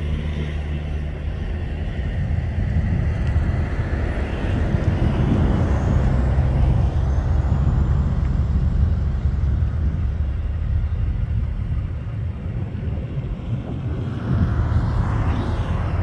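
Airbus A320-214's CFM56 turbofan engines at takeoff power, heard from a distance as a steady low rumble with a faint rising whine partway through.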